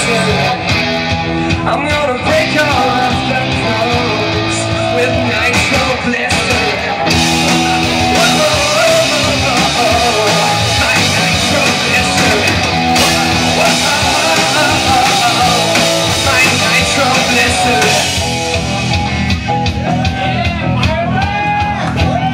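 Rock band playing live, loud and continuous, with guitar prominent.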